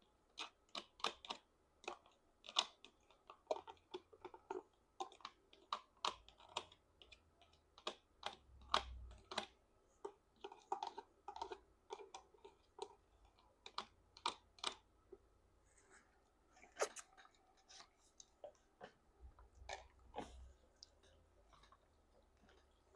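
Jajangmyeon noodles being tossed and mixed with black bean sauce in a bowl: many faint, small, irregular wet clicks and squishes, with a couple of soft low thumps of the bowl being handled.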